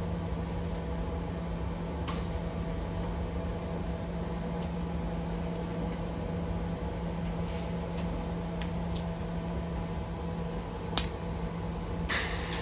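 MIG welder sitting with a steady hum while the shielding gas is checked: short hisses of gas from the torch about two seconds in and again near the end, with a few light clicks.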